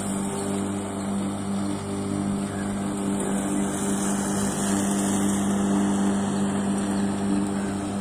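3 hp three-phase electric lawn mower running steadily as it is pushed across the grass: a steady low motor hum over the even whirr of the spinning blade.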